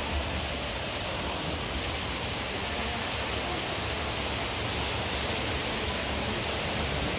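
Steady rushing hiss of falling water from the Cloud Forest dome's indoor waterfall, even and unbroken.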